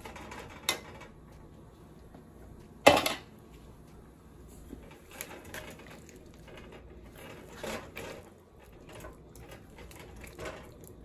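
Boiled chickpeas being stirred through tamarind sauce in a large metal pot with a silicone spatula: wet stirring with a few knocks of the spatula against the pot, the loudest about three seconds in and another near the end of the second third.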